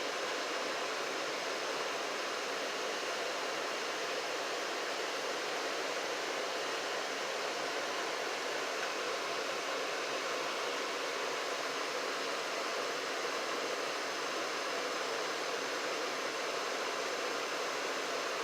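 Janitrol furnace running, a steady rushing air noise from its blower and burner.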